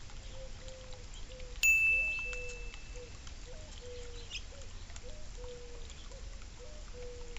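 A single sharp metallic ding about a second and a half in, ringing clearly and fading over about a second. Beneath it runs a steady string of low repeated hooting notes, likely from a bird.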